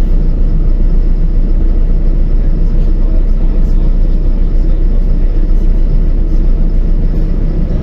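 LiAZ-5292.22 city bus under way, heard from inside the cabin: a steady, loud low rumble of engine and road noise.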